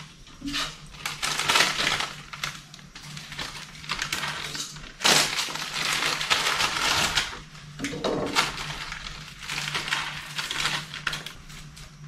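Irregular crackling and rustling from hands handling food and its packaging over a pot on the stove, with the loudest burst about five seconds in. A steady low hum runs underneath.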